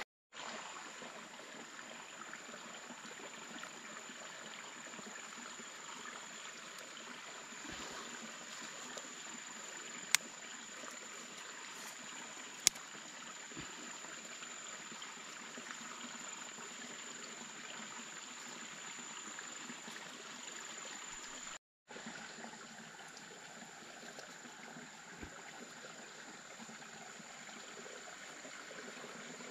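Water trickling and running steadily, with a constant high-pitched whine above it. Two sharp clicks stand out, about ten and twelve seconds in.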